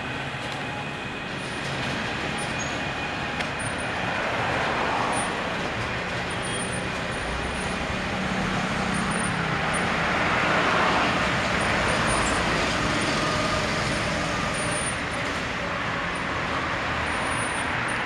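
Road traffic on a busy main road: a steady wash of engine and tyre noise that swells several times as vehicles pass.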